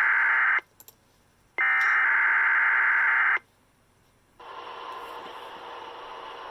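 NOAA Weather Radio Specific Area Message Encoding (SAME) data bursts, the shrill warbling digital header of the weekly test. One burst ends about half a second in, and a second burst of about two seconds follows after a second of silence. From just past the midpoint there is only steady, much quieter radio hiss.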